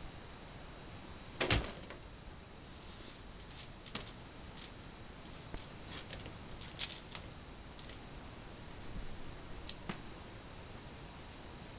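A cat moving about a plastic-framed play tent and a paper bag: scattered light clicks, taps and rustles, with one louder thump about a second and a half in.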